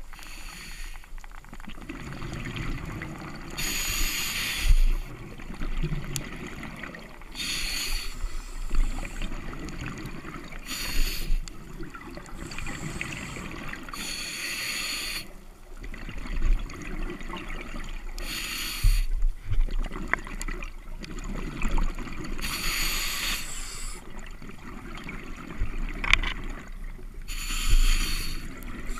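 Scuba diver breathing through a regulator underwater: a hiss on each inhale and a rush of bubbles on each exhale, about seven breaths, one every four seconds or so.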